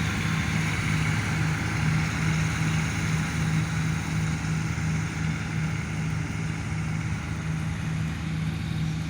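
Combine harvester running steadily while cutting wheat: an even engine drone over a constant mechanical rush, with no change in pitch.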